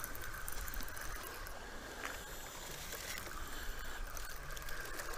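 Spinning reel cranked steadily, a faint even whir, as a small hooked catfish is reeled in.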